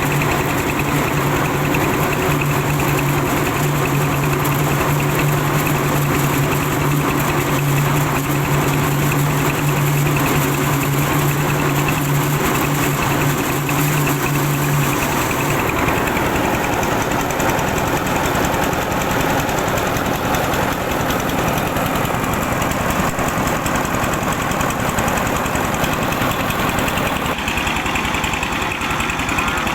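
Old car engine running steadily while driving a rice milling machine, with a dense mechanical rattle throughout. A steady low hum under it stops about halfway through.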